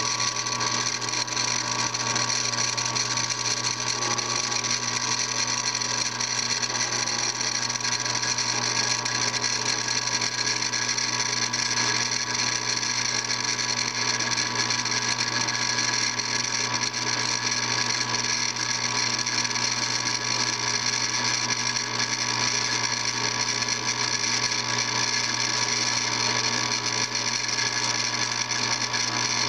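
Bench drill press running steadily, its motor and belt drive giving a constant mechanical hum with several steady tones.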